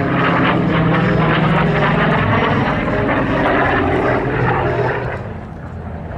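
Vought F4U Corsair's Pratt & Whitney R-2800 radial piston engine and propeller running loud and steady in a flying display pass, growing fainter about five seconds in as the plane pulls away.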